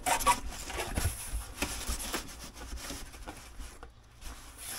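Corrugated cardboard shipping boxes scraping and rubbing against each other as one box is slid down over another, with a few light knocks.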